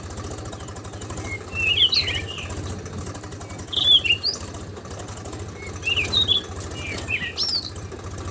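Bird song in short chirping phrases, about one every two seconds, over a steady low mechanical hum.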